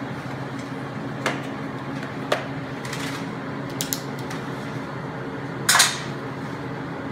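Metal clinks and knocks of steel and tools being handled on a welding bench, over a steady electrical hum. A short, louder burst of noise comes a little before six seconds in.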